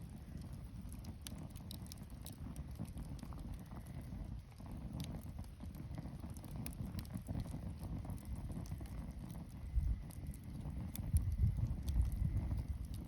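Wood campfire crackling, with scattered sharp pops and snaps over a low rumble that swells near the end.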